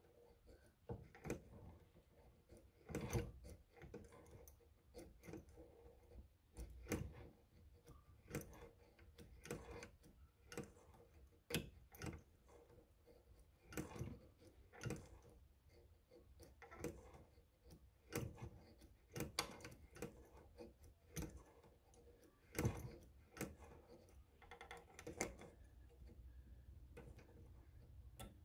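1940s Peter Pan Model 1 sewing machine stitching slowly through fabric, giving faint, irregular clicks as the needle mechanism cycles.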